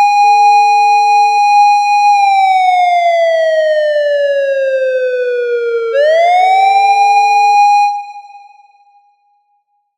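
Police car siren wailing: a clean electronic tone that holds high, falls slowly, then sweeps quickly back up and holds again, with a short steady lower tone sounding beneath it twice. It fades out near the end.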